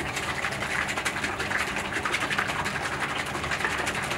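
Thick sauce sloshing in a plastic squeeze bottle that is shaken hard by hand to mix it: a rapid, even run of sloshing strokes with no break.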